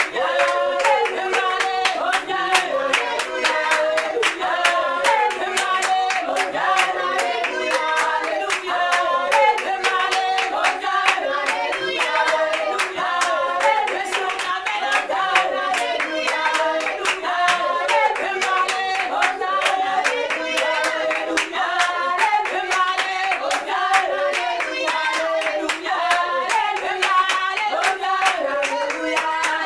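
Women's voices singing a church worship song together, with steady rhythmic hand-clapping keeping the beat.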